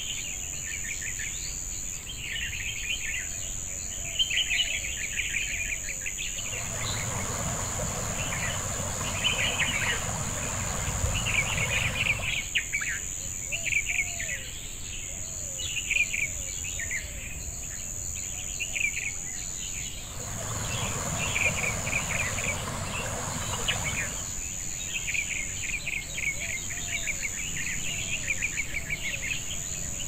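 Jungle ambience: a steady high-pitched insect drone with birds chirping and calling all through. Twice, for a few seconds at a time, an even rushing noise comes in underneath and then cuts off.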